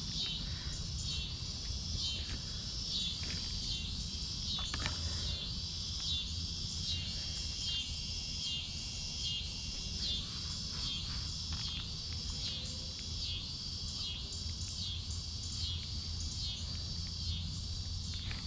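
Insects calling in a steady chorus of high-pitched pulses, about three pulses every two seconds, over a low rumble, with a couple of faint clicks in the first few seconds.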